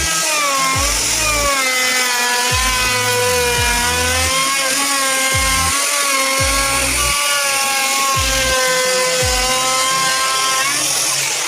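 Electric power tool running on wood, its motor whine wavering and dipping in pitch as the load changes.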